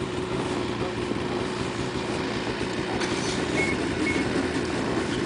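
Snowmobile engines idling with a steady, even running sound.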